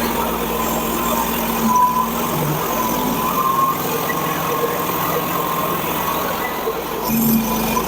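Hud-Son portable band sawmill running steadily, its engine holding a constant note with a faint high whine over it as the blade works through a log.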